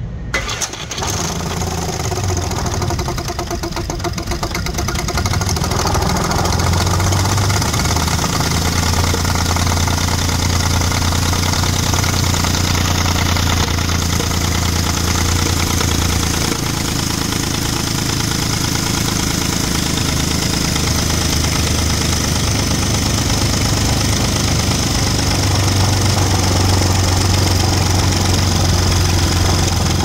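Audi 3.2 V6 engine starting just after the beginning, then running at idle with its valve cover off, the camshafts and valvetrain exposed. It makes a knocking noise that, with crank/cam correlation codes set, the owner takes for worn timing chains.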